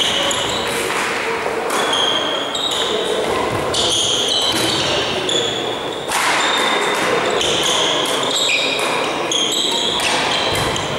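Sports shoes squeaking repeatedly on a hard sports-hall floor during badminton play, in the echo of a large hall, with voices in the background.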